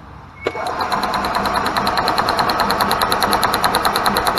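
Gas Club Car golf cart's starter-generator cranking the single-cylinder engine with the pedal pressed: a click about half a second in, then a steady whir with fast, even ticking on top, with a spark tester on the plug lead. The cart is getting spark again now that the faulty rev limiter box has been replaced.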